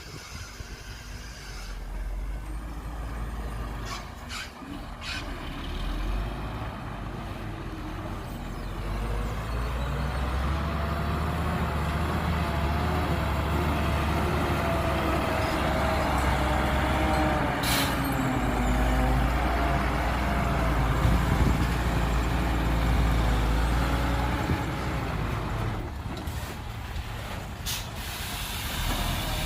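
Heavy diesel engine of earth-moving machinery running and working, growing louder about a third of the way in, with a wavering whine through the middle and a few sharp, brief sounds, the clearest about two-thirds through.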